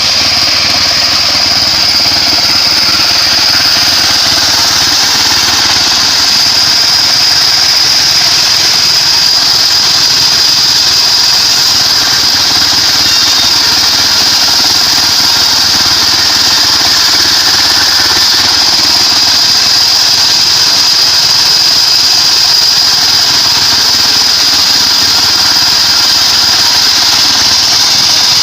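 Homemade bandsaw sawmill running steadily: a loud, even machine noise with a constant high whine.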